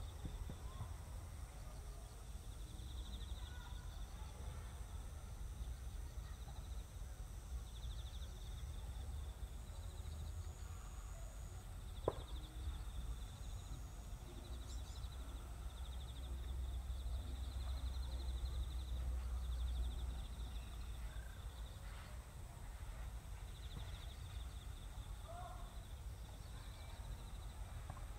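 Rural outdoor ambience: insects chirring in short, repeated pulsing phrases over a low, steady rumble, with one sharp knock about twelve seconds in.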